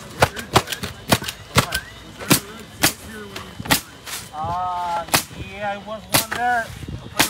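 Pneumatic roofing nailers driving nails through asphalt shingles: a string of sharp, single cracks, about a dozen at uneven spacing, roughly every half second to a second.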